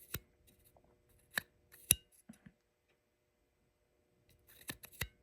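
Sharp mechanical clicks of a PEZ Magic Viewer as its spring-loaded plunger is pushed to advance the pictures. Three single clicks about a second apart, a quiet pause of about two seconds, then two quick clicks near the end.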